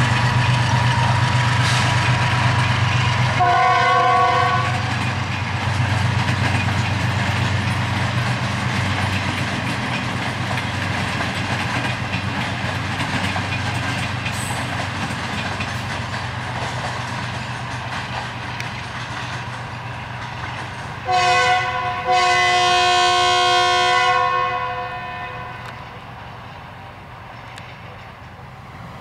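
A train rumbles past on the rails, its sound slowly fading. A diesel locomotive horn sounds a short multi-tone blast about four seconds in. Near the end it gives a brief toot followed by a louder blast of about two seconds.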